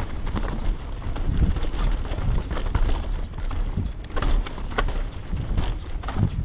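Mountain bike riding fast down a dirt trail: wind buffeting the microphone and tyres rolling over dirt, with repeated sharp clacks and knocks from the bike over bumps.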